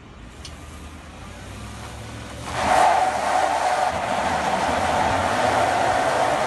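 Chevy pickup truck accelerating hard while pulling against a braked pickup. The engine builds up, then about two and a half seconds in a sudden loud, steady screech sets in as the tyres spin and the truck strains at full power.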